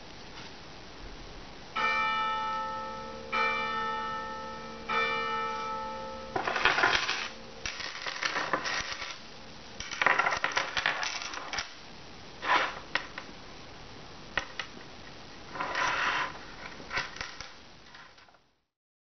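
Three separate bell-like metallic rings, about a second and a half apart, each dying away slowly. Then comes irregular clinking and jingling of stone beads and silver metal findings as a beaded necklace is handled and shaken.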